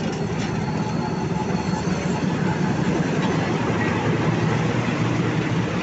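Bangladesh Railway diesel-electric locomotive 2508's engine running with a steady, low hum, a little louder in the middle.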